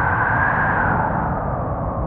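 Howling wind: a steady rush over a deep rumble, with a whistling moan that rises slightly and then sinks in pitch about a second in.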